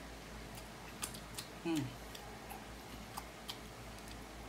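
Close-miked eating sounds: a few faint wet clicks and smacks of chewing and finger-licking. About two seconds in comes a short hum of enjoyment that falls in pitch, the loudest sound.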